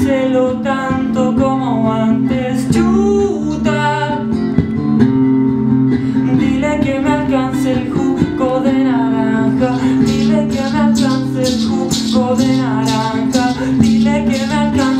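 Acoustic guitar and a male voice singing a song, with steady guitar strumming that grows more prominent about two-thirds of the way through.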